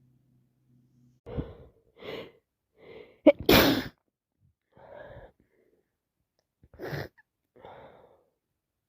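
A person with flu sneezing. A few short gasping breaths build up to one loud sneeze about three and a half seconds in, followed by smaller breaths and another short, sharp sneeze near seven seconds.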